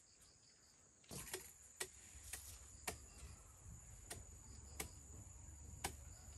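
A run of about eight sharp, irregular clicks or knocks, beginning about a second in, over a steady high insect drone.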